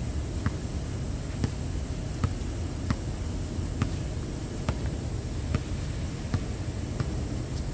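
A basketball being bounced on an outdoor hard court, a sharp knock roughly every second in an even dribbling rhythm, over a steady low rumble.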